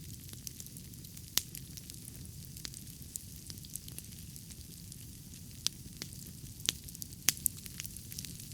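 Wood fire burning in a fire pit, crackling with scattered sharp pops over a steady low rush.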